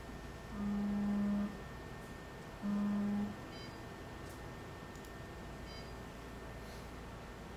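Zeiss Stratus OCT retinal scanner sounding two steady low electronic tones, the first about a second long and the second shorter, while it optimizes and captures a scan. Faint short high beeps follow later.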